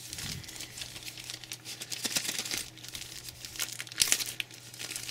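Clear plastic packaging bag crinkling and rustling in the hands as it is unwrapped from around a pair of earphones, in irregular crackles that come thickest about two and four seconds in.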